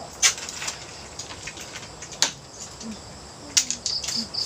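A few sharp clicks or knocks, with a short run of high chirping like insects near the end.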